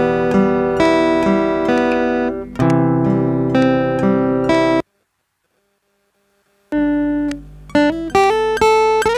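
A single soloed acoustic guitar track, recorded on a mobile phone and not yet processed, playing back. It strums chords for nearly five seconds, falls completely silent for about two seconds, then comes back in with single picked notes.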